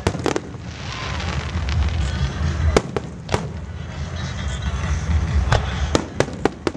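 Aerial fireworks display: a continuous deep rumble of launches and shell bursts, broken by sharp bangs, a pair near the start, a pair around the middle and a quick run of four or five near the end.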